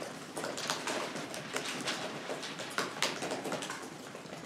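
Irregular light clicking and tapping of laptop keyboards being typed on, several keystrokes a second, over a low room hum.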